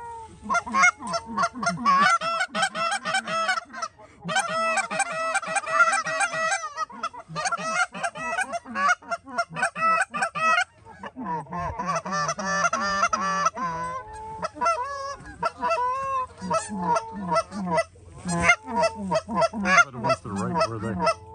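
Canada geese honking and clucking, many short calls overlapping in a dense chorus.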